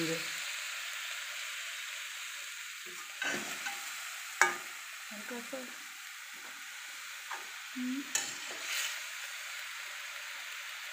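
Paneer cubes sizzling as they fry in hot oil in a kadai, a steady hiss, with a metal spatula scraping and clicking against the pan a few times as the pieces are turned; the sharpest click comes about halfway through.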